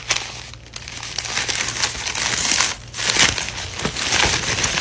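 Packaging crinkling and rustling as a mailed package is handled and opened by hand, with a short lull about three seconds in.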